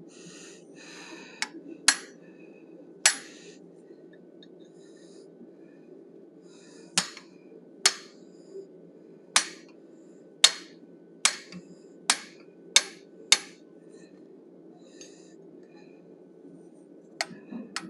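Hammer striking a 1/8-inch fuller held against a hot forged steel bison head on the anvil, setting the brows down. Three sharp blows with a brief ring come first, then a pause, then a run of about eight blows a little under a second apart, and one more near the end.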